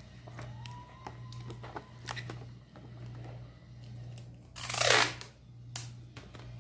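Adhesive tape pulled off the roll and torn, one loud rasp about five seconds in, among light rustles and clicks of paper being handled, over a steady low hum.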